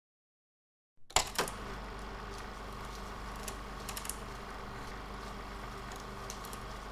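Steady electrical hum and room tone that cut in abruptly after a second of dead silence, with a couple of sharp clicks as it starts and a few faint ticks scattered after.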